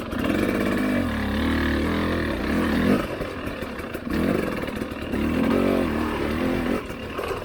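Husqvarna TE300i 300 cc two-stroke enduro engine being ridden, revving up and down as the throttle is opened and closed, its pitch rising and falling several times.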